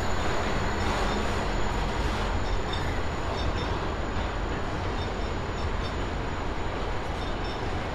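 A train passing close by: the steady noise of its wheels running on the rails, with no let-up.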